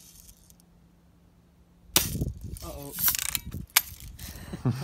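A Daisy Red Ryder spring-powered BB gun fired once, a sharp pop about two seconds in, followed by a short sharp click a little over a second and a half later.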